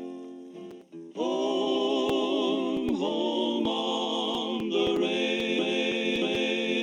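Outro music: plucked-string notes fade out, then from about a second in, sustained choir-like chords come in and change several times.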